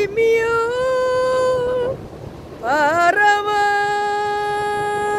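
A woman singing two long held notes: the first is held for about two seconds, and the second begins with a rising scoop at about the midpoint and is held steady to the end.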